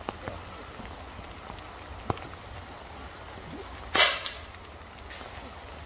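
An air rifle shot about four seconds in: one sharp crack, then a second, smaller crack about a third of a second later. Behind it, steady rain with a few scattered drip ticks.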